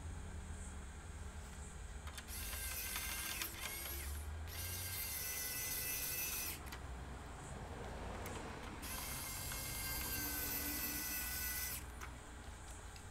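Small electric motor whining in three bursts of two to three seconds each, steady in pitch, with a short gap after the first and a longer gap before the last.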